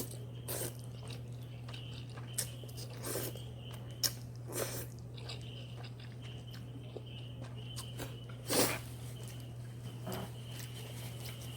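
A person eating instant noodles: scattered short chewing and mouth sounds, with a louder one about eight and a half seconds in, over a steady low hum.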